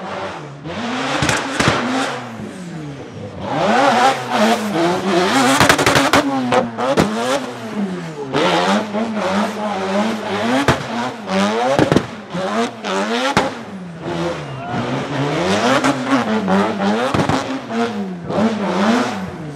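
Drift car engine revving hard and dropping back over and over, its pitch rising and falling about once a second, over a loud hiss of tyre noise, with sharp cracks now and then.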